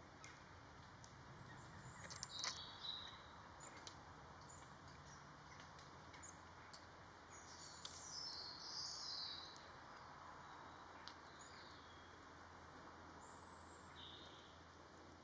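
Faint woodland birdsong: short, scattered chirps and twittering phrases, the loudest about two and a half seconds in and a longer run around eight to nine seconds in, over a quiet outdoor hiss with a few faint clicks.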